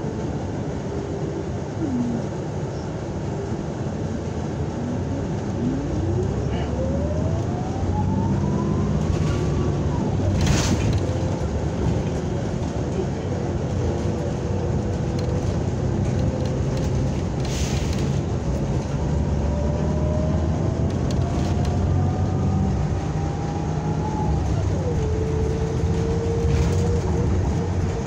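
Articulated NABI 60-BRT city bus heard from inside the cabin while under way: a steady low engine rumble and road noise, with a whine that rises in pitch as the bus picks up speed. The whine climbs again more slowly, then drops sharply near the end, and a couple of short rattles or knocks come from the body.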